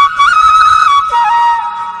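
Music: a flute playing a slow melody of held notes that step up and down, with a low accompaniment underneath.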